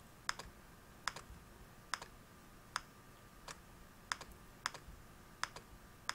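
Computer mouse button clicking: about nine sharp, faint clicks spaced just under a second apart, each a press followed closely by a release.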